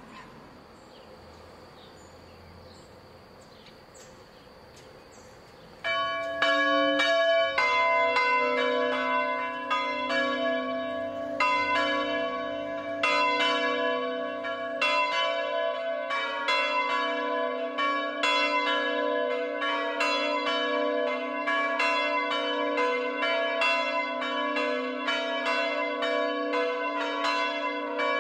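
A faint steady high whine for the first six seconds, then swinging church bells from an electrified five-bell peal in F sharp start up loudly. Their strokes overlap and go on ringing.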